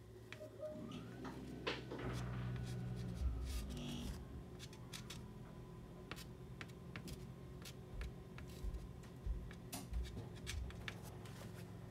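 Soft pastel stick scratching and tapping on paper in many short strokes as colour is laid into a small sketch. A low hum runs underneath, strongest for a few seconds early on.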